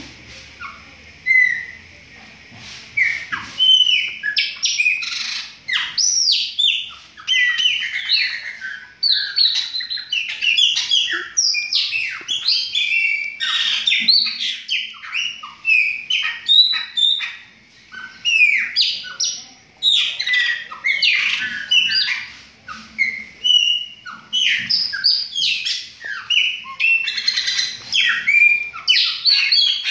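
Caged chopi blackbirds (pássaro-preto) singing: a dense, loud stream of clear whistles, chirps and sliding notes that starts about a second in and goes on with only brief pauses.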